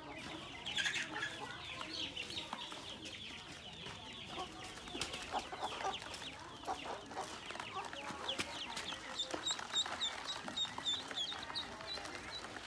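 Ducklings peeping constantly, many short, high, downward-sliding calls overlapping. From about nine seconds in, one bird repeats a sharper, higher peep about three times a second.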